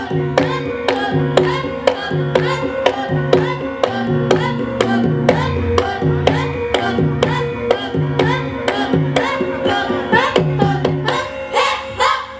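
Javanese gamelan ensemble playing: bronze metallophones and gongs struck in a steady beat of about three strokes a second, their notes ringing on under the strokes, with drum.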